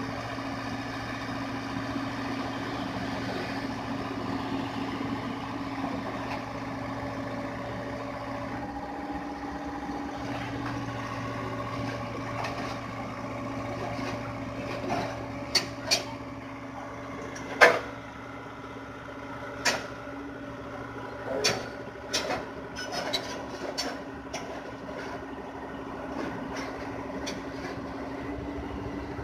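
Hyundai excavator's diesel engine running steadily at work. From about halfway, a series of sharp metallic clanks and knocks, one much louder than the rest.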